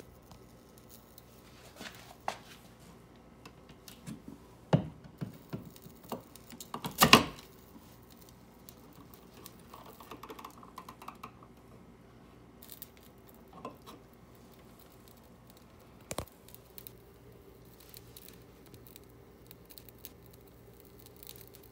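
Scattered clicks, knocks and rustles as a wall receptacle and its wiring are handled and pulled out of the electrical box, the loudest knock about seven seconds in.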